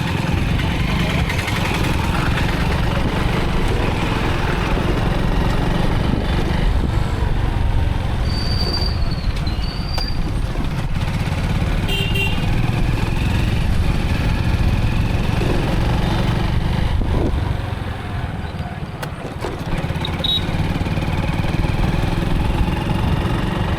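A motorcycle running on the move, with a steady low rumble of engine and wind on the microphone that eases briefly about three quarters of the way through. A few short high tones sound over it around the middle.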